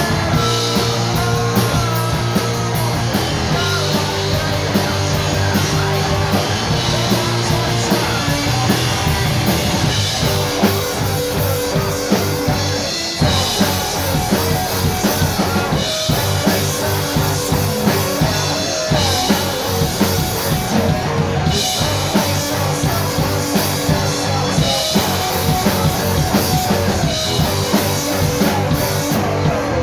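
Rock band playing live, loud and driving, with drum kit and guitars.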